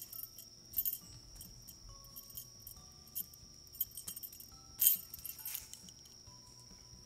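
A small bell jingling in about six short shakes, the loudest about five seconds in.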